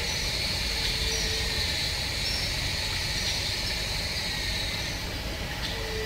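Steady high-pitched insect chorus over a low rumble, with a few short low tones now and then.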